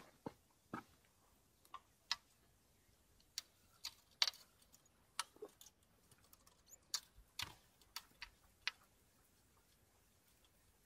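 Fishing tackle being handled close to the microphone: about twenty irregular, sharp clicks and taps, some much louder than others.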